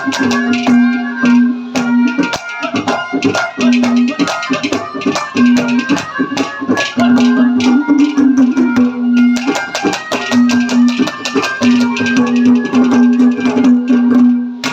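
Instrumental interlude of Haryanvi ragni folk music: fast rattling percussion with drums under a melodic instrument that holds a low note in stretches of a second or two.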